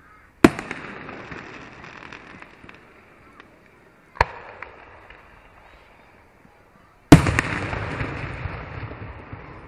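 Aerial fireworks shells bursting: three sharp bangs, about half a second, four and seven seconds in, the last the loudest with a second bang close behind it. Each bang fades away over the next few seconds.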